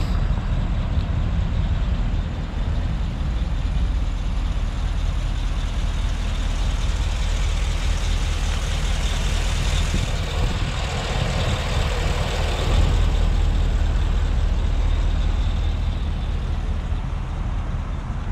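Isuzu NPR HD's gasoline V8 engine running at idle, a steady low drone that gets a little louder about two-thirds of the way through.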